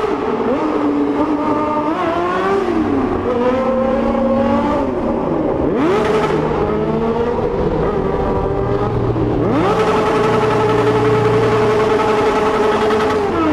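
Vehicle engines revving repeatedly, the pitch climbing, dropping back and climbing again, then held at a steady high rev for about four seconds near the end.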